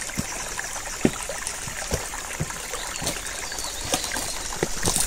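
Stream water running: a steady rushing with irregular little splashes through it.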